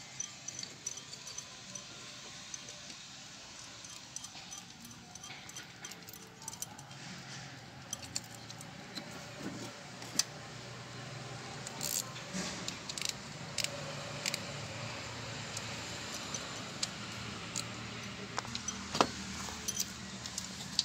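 Metal timing chain links clinking and jingling as the chain and its guide are handled and fitted onto the sprockets. The clicks are scattered and light, busiest in the middle, with one sharper knock near the end.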